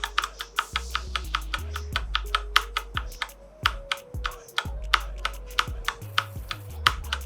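Background music with a steady bass line under rapid, irregular clicking of mechanical keyboard keys being typed on.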